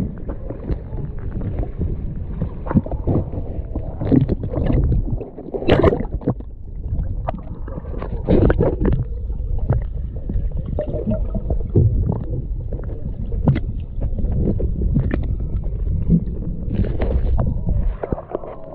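Muffled water sloshing and gurgling around a microphone held just under the surface beside a kayak, with a steady low rumble broken by irregular knocks and splashes.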